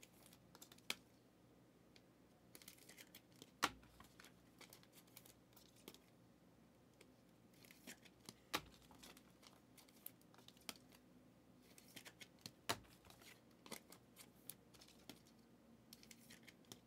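Sports trading cards being handled and flipped through by hand: faint scattered clicks and card snaps, the sharpest nearly four seconds in.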